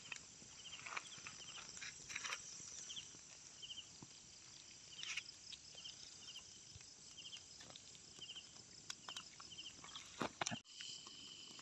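Faint night ambience: short chirps from a night-calling insect, repeating every half second to a second, with scattered clicks and pops from the small fire grilling the fish.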